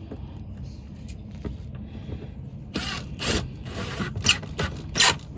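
Plastic clicks and short scrapes as a turn signal bulb socket is twisted and locked back into its lamp housing. There are a few sharp clicks in the second half, the loudest near the end.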